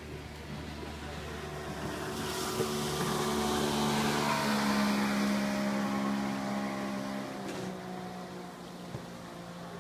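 A motorboat's engine passing at speed: it grows louder over a few seconds, peaks about halfway through, then fades with a slight drop in pitch as it goes by, with a hiss of rushing water near its loudest.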